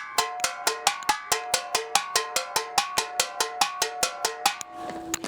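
Recycled scrap objects struck with a stick like a small improvised xylophone: a quick, even run of bright, ringing, metallic-sounding notes at several pitches, about five or six strikes a second. The strikes stop shortly before the end, leaving a lower ringing tone.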